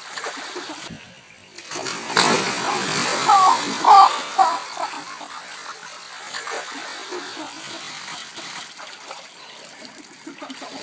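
Water splashing and sloshing in an inflatable paddling pool, louder about two to four seconds in, where a few short high-pitched squeals break out, then quieter sloshing.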